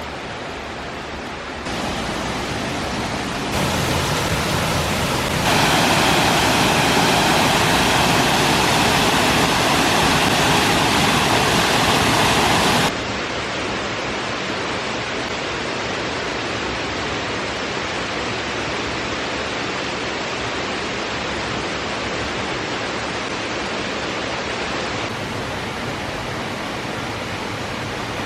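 Blue Hole Falls on the Little Duck River, a waterfall rushing with a steady roar of falling water. The level shifts in abrupt steps and is loudest and brightest for about seven seconds, starting about five seconds in.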